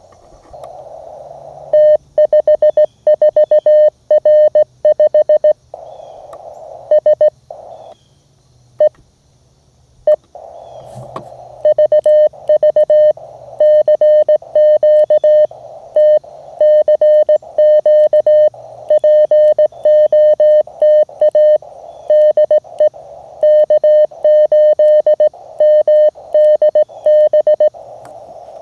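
Morse code (CW) from a Mountain Topper MTR QRP transceiver: a single steady tone keyed in dots and dashes over receiver band hiss. There are two runs of code with a lull and a sharp click between them, the second run much longer.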